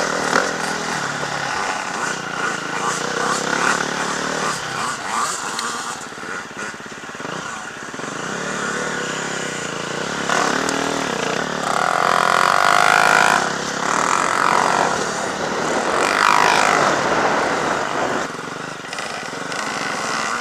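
Motocross bikes running on a dirt track, engines revving up and down as they ride past, with the loudest pass about twelve seconds in.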